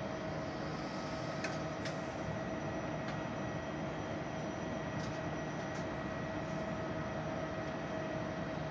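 Trenitalia double-deck electric train standing at a station platform, its onboard equipment giving a steady hum with a constant mid-pitched tone. A few faint ticks can be heard.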